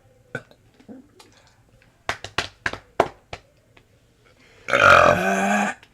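A few short sharp clicks, then about a second and a half before the end a loud burp lasting about a second.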